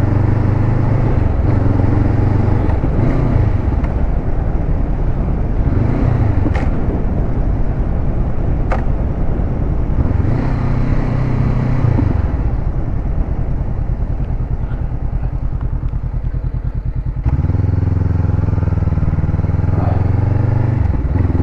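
Honda CBR500R's parallel-twin engine running as the bike is ridden, its note rising and falling with throttle and gear changes. It drops to a softer, pulsing note for a few seconds past the middle, then comes back on sharply near the end.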